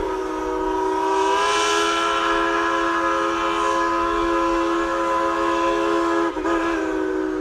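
Steam locomotive chime whistle sounding a long, steady multi-note blast, broken briefly about six seconds in and then blown again.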